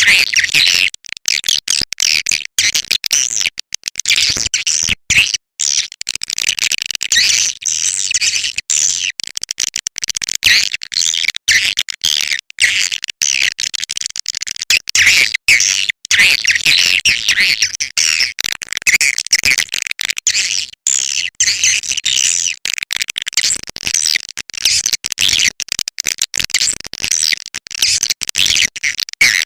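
Swiftlet call recording: dense, continuous high twittering and chirping of edible-nest swiftlets, many calls overlapping, broken by brief gaps. It is a lure call, played to draw swiftlets into a swiftlet house to roost and nest.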